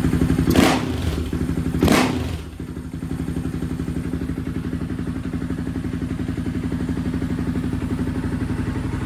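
Honda TRX700 ATV's single-cylinder engine idling with an even beat on the Vortex ECU's map 1, running smoother in the owner's words, though he wonders whether it is now running lean. Two sharp thumps come about a second apart near the start.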